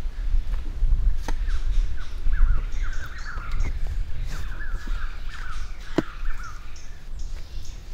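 Birds calling in rapid, gliding chirps from about a second in until near the end, over a steady low rumble. A few sharp knocks cut through, the loudest about six seconds in.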